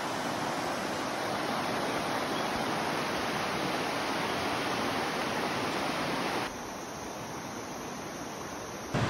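Shallow river water rushing over a stony bed in a steady rush. About six and a half seconds in it drops to a quieter, softer flow.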